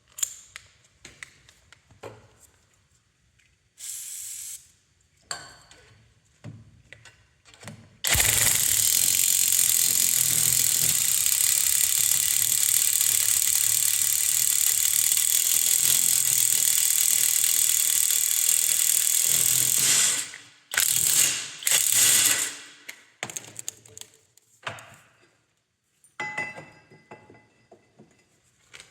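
Impact wrench fitted with a hole-cutting bit, running hard for about twelve seconds as it cuts a 22 mm hole through 10 mm steel plate. It is followed by a few short trigger bursts. Small clicks and knocks of handling come before and after.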